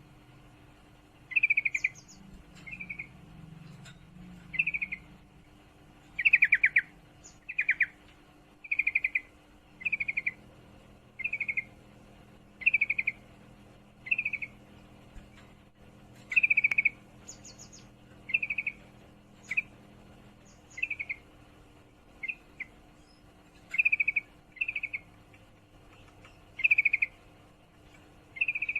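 Female yellow-vented bulbul in breeding condition giving her rapid chattering call to draw males: short trilled bursts, about one a second, repeated over and over.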